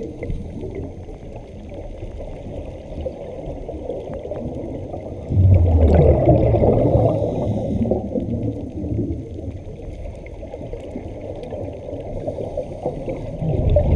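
Low rushing, gurgling water noise, swelling suddenly louder about five seconds in and again near the end.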